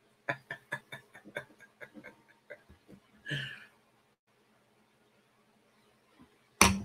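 A man's soft laugh: a run of short pulses, about four a second, fading away over some three seconds, then one breath, then near silence.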